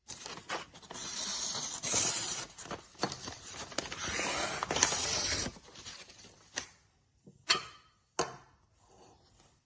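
A knife blade scraping against a sharpening stone for about five seconds, then a few separate clicks and knocks.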